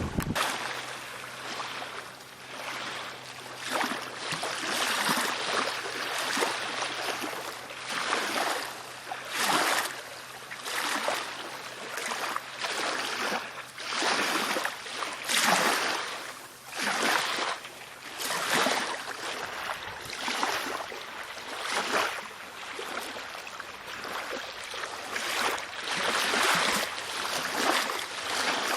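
Water splashing and washing against a kayak's hull in irregular surges, one every second or two.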